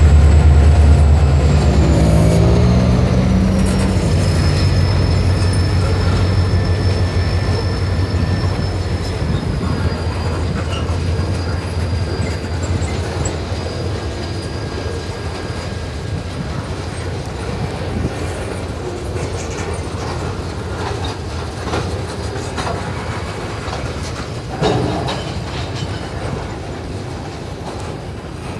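Freight train passing: the diesel locomotive's engine drone eases away in the first few seconds, its pitch dropping, then boxcars roll by with steady clicking of wheels over rail joints and a thin, high wheel squeal. About 25 seconds in there is one louder clunk, and the whole sound slowly fades.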